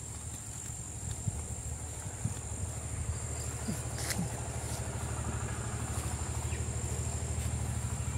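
A steady high-pitched insect drone throughout, with scattered footsteps crunching on dry leaf litter. Under it is a low pulsing rumble that grows stronger about halfway through.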